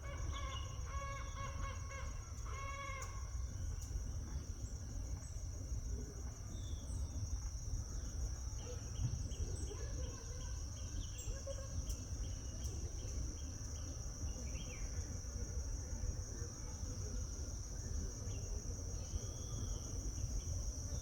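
Birds calling: a few pitched calls in the first three seconds, then a run of short repeated notes, about two a second, from about nine seconds in. A steady high insect drone and a low rumble run underneath.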